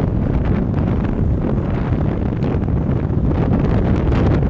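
Wind buffeting the microphone of a camera riding along on a bicycle: a loud, steady low rumble.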